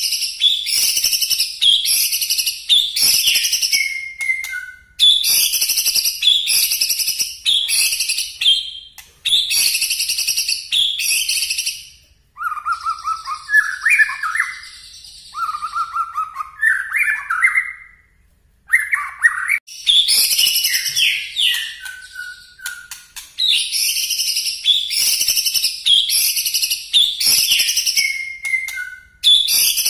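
White-rumped shama singing in loud, sharp runs of high repeated notes ('nembak'). The phrases last a few seconds with short pauses between them, and a lower phrase of rising warbled notes comes in about halfway through.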